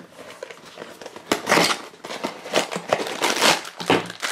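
A foil blind bag crinkling as it is handled and squeezed in the hand, in irregular crackles that start about a second in.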